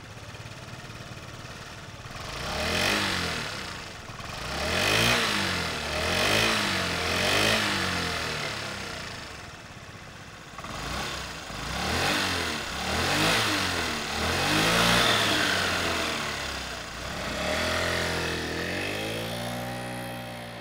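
A 2023 Honda Metropolitan's 49cc single-cylinder four-stroke engine idling and being revved with the throttle. The revs rise and fall about nine times between steady idle stretches.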